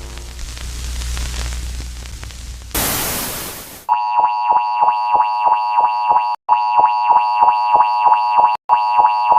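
Low, rumbling static that gives way about three seconds in to a second-long burst of loud hiss. Then a synthesized emergency alert tone starts: a loud chord of steady high tones pulsing about four times a second, in runs of about two seconds with short breaks.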